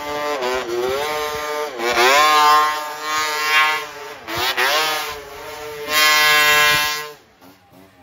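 Vintage two-stroke snowmobile engine revving hard through deep powder, its pitch dipping and climbing again several times as the throttle is worked. It is loudest about two and six seconds in, then drops away sharply near the end.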